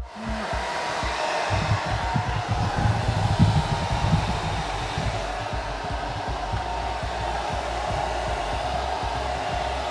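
Handheld hair dryer running steadily, a continuous rush of air with a faint whine, as it blows on hair.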